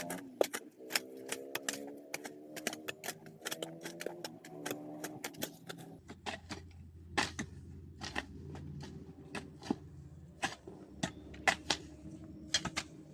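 Rapid, irregular sharp clicks over a faint pitched background, which turns into a steady low hum about six seconds in.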